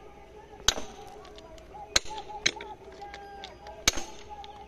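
A steel tool striking a steel elastic rail clip on a concrete-sleeper track, driving the clip into its seat: three sharp metallic blows with a brief ring, about a second and a half apart, and a lighter knock between the second and third.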